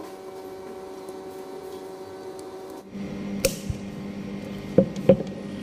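Steady humming room tone that shifts abruptly a little before halfway, then a few sharp clicks in the second half as a battery is fitted into a GoPro Hero 10 camera and its battery compartment handled.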